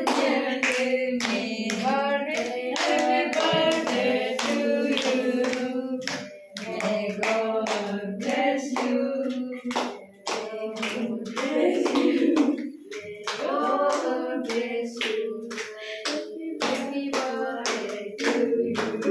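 A group, mostly children, singing a birthday song together while clapping in time at about two claps a second, with short breaks between verses.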